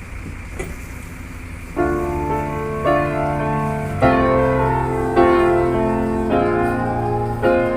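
Low steady rumble of a bus running, then about two seconds in, piano music comes in with held chords that change roughly once a second.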